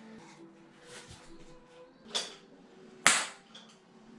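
Silicone sealant gun clicking sharply twice, about a second apart, as its trigger is worked to push a bead of clear silicone along the joint between shower tray and wall.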